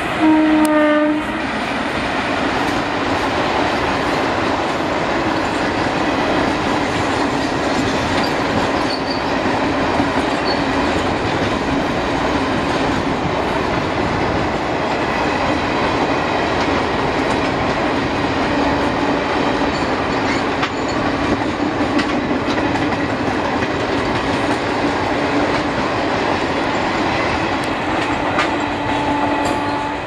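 An Indian Railways WAP4 electric locomotive's horn sounds a loud blast of about a second at the start. The steady rumble and clatter of the passenger coaches' wheels on the rails follows as the train passes.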